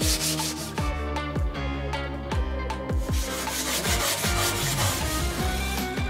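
A small metal or wooden knife part is rubbed back and forth by hand on a sheet of sandpaper, making a scratchy sanding sound. Background music with a steady beat plays over it.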